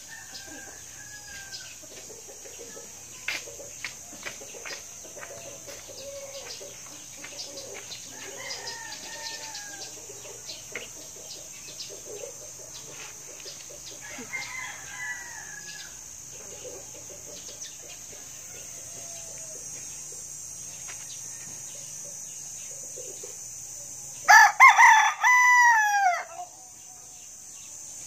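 A rooster crowing loudly once near the end: a full cock-a-doodle-doo about two seconds long that falls away at its close. Before it come several fainter crows and low clucking over a steady high hiss.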